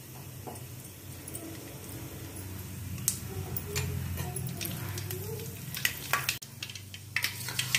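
Mustard seeds sizzling in hot oil in a steel pan as they are tempered, starting to pop: scattered sharp crackles from about three seconds in that come faster near the end, over a low steady hum.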